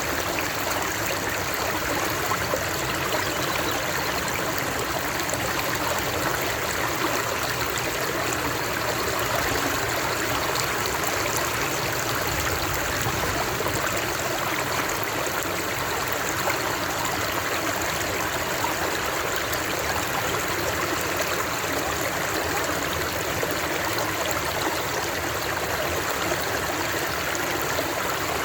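Steady rushing and trickling of a flowing stream, even and unbroken.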